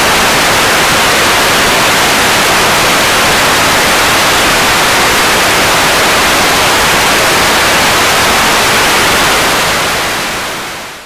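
Analog television static: a steady, loud hiss of snow from a set receiving no signal once the station is off the air, fading out over the last two seconds.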